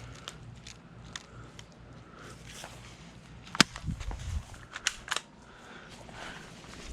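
Sharp cracks of airsoft guns firing: one loud shot about three and a half seconds in, then a quick cluster of shots near five seconds, with lighter clicks scattered around them.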